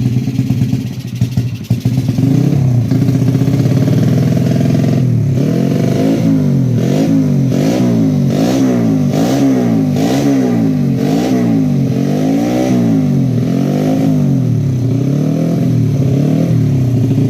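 Yamaha Jupiter Z 115cc motorcycle's single-cylinder four-stroke engine idling. About five seconds in it is blipped up and down over and over, roughly once a second, then settles back to a steady idle near the end.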